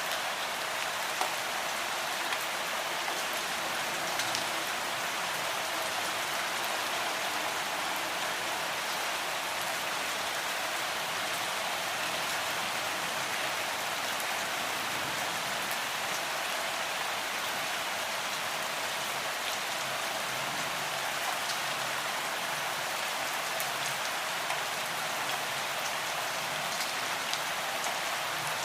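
Gentle rain falling steadily: an even hiss of rainfall with occasional distinct drops ticking.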